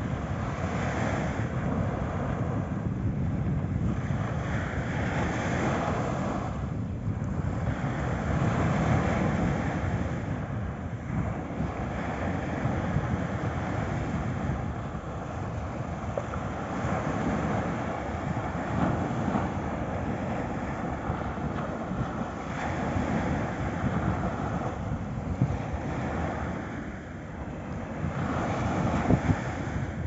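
Small waves breaking and washing up a sandy beach, the surf rising and falling every few seconds, with wind rumbling on the microphone.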